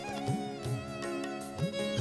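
Instrumental interlude of a Telugu Christian worship song played from a backing track: a melody with gliding notes over held chords, with a few low drum strokes.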